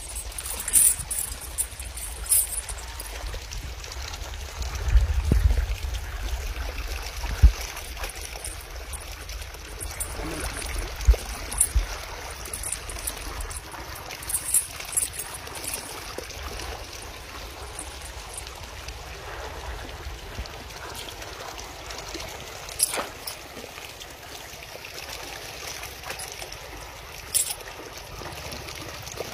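Shallow river water flowing and trickling steadily, with scattered sharp metallic clinks of a steel chain being handled and a few low thumps in the first half.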